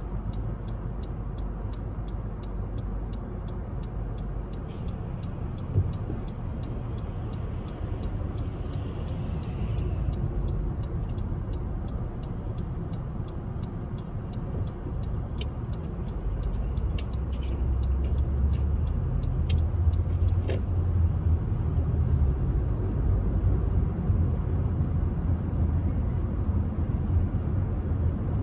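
Car driving through city streets, its steady low road and engine rumble heard from inside the vehicle and growing louder about two-thirds of the way in. A faint regular ticking runs under it.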